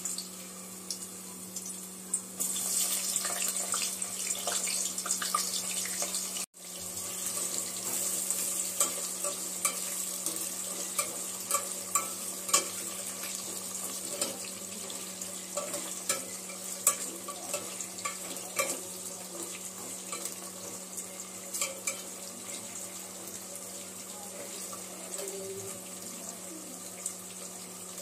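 Fresh-cut potato sticks deep-frying in hot oil in a pot: a steady sizzling hiss with many scattered crackles and pops.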